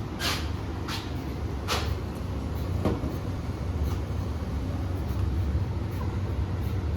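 Footsteps, about one a second for the first four seconds, then fading out, over a steady low rumble.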